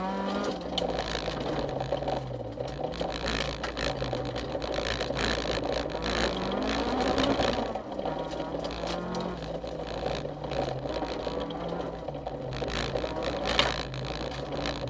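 Honda CRX rally car heard from inside the cabin at stage speed: the engine revs rise and fall repeatedly through gear changes and lifts, with a long climb that cuts off sharply about eight seconds in. Tyre and gravel noise runs underneath, with scattered ticks of stones.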